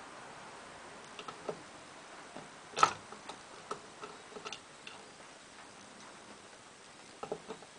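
Hand screwdriver turning screws into the plastic laser cannon cover of a pinball machine: scattered light clicks and taps, with one sharper click about three seconds in.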